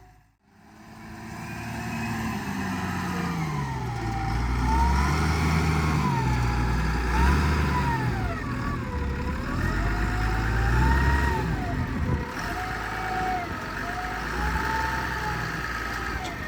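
Wheel loader's diesel engine revving up and down over and over as it works, with a whine rising and falling along with the revs. The sound fades in just after the start.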